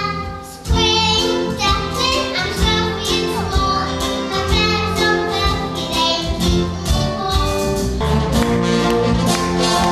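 Stage-show music with brass and a steady beat, with children singing along. About eight seconds in it switches to a different number.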